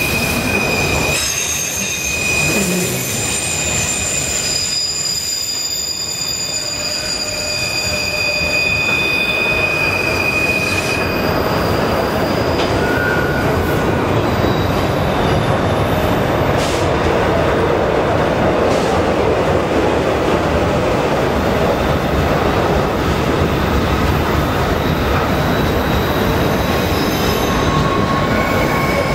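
Freight train of autorack cars rolling past: a steady rumble of steel wheels on the rails. High, thin wheel squeals are held for several seconds at a time, strongest in the first ten seconds or so.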